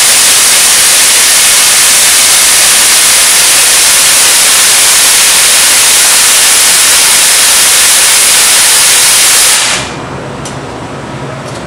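Nitrous oxide at about 1,000 psi discharging through a Nitrous Express Super Sharp .157-orifice 'trashcan' solenoid and an 82 jet, a loud, steady hiss that cuts off sharply near the end as the 10-second timer closes the solenoid.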